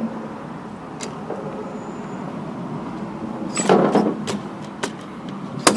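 Recoil starter of a Stihl BG55 leaf blower worked by hand: a few sharp clicks and, about three and a half seconds in, a short rasping pull of the starter rope.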